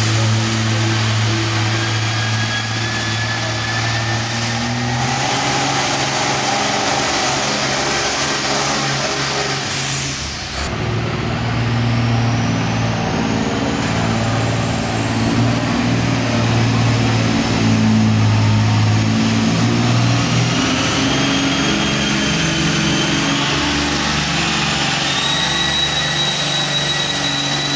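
Two diesel pulling tractors, one after the other, running hard under sled load. The first engine runs with a very high turbo whistle that climbs, then falls away sharply about ten seconds in. After a sudden change, a second tractor's engine runs with a turbo whine that rises slowly in pitch to the end.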